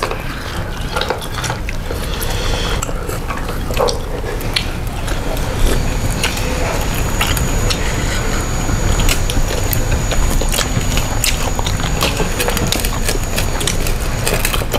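Someone eating close to the microphone: chewing with many small clicks and taps of plate and cutlery, over a steady low background rumble.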